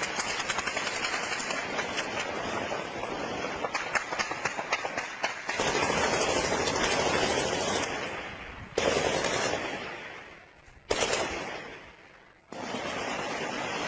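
Automatic gunfire in a night-time armed clash, with rapid cracking shots packed densely through the first five seconds. Heavier bangs follow about nine and eleven seconds in and die away slowly.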